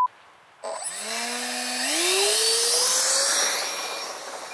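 Electric motor of a radio-controlled foam-board plane whining as it throttles up, its pitch rising steadily for about two seconds, then holding and fading away.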